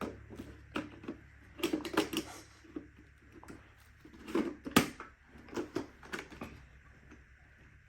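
Scattered clicks and knocks of plastic parts being handled on a Shark IQ robot vacuum as its filters are changed, with one sharp click about five seconds in.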